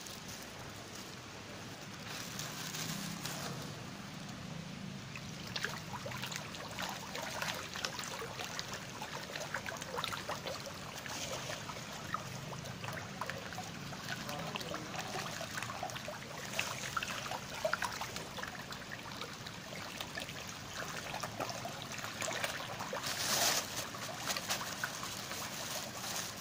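A dense crowd of fish churning and splashing at a pond's surface in a feeding frenzy: a continuous watery crackle of many small splashes, with one louder splash near the end.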